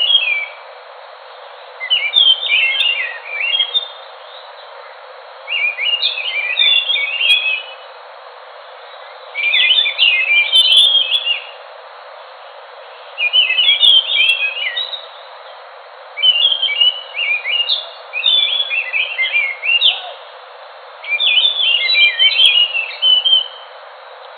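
A Geokichla ground thrush (anis) singing in a string of quick, varied phrases of chirps and whistles. Each phrase lasts about two seconds and they come roughly every three seconds, over a steady hiss.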